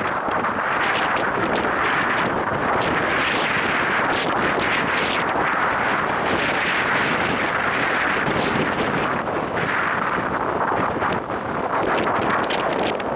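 Strong wind buffeting the microphone: a loud, steady rushing noise that hardly lets up.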